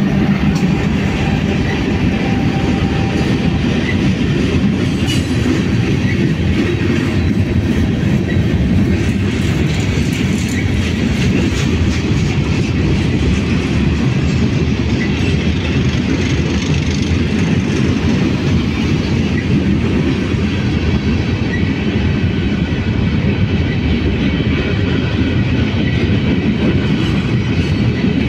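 Freight train of gondola cars rolling past close by: a steady rumble with the clatter of steel wheels on the rails, unchanging throughout.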